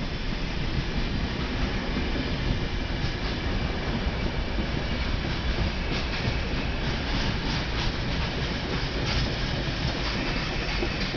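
Rake of empty container flat wagons rolling past on a freight train, a steady rumble of wheels on rail, with a run of sharper clicks between about six and nine seconds in.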